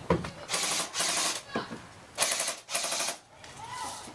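Airsoft guns firing on full auto: two rapid, rattling bursts, each under a second long, with a pause between them.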